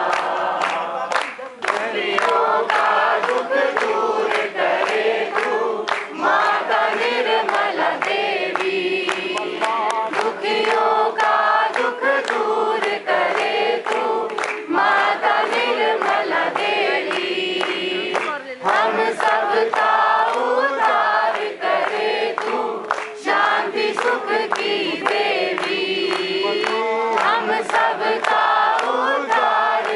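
A group of men and women singing a bhajan together, a devotional song, with sharp regular beats keeping time.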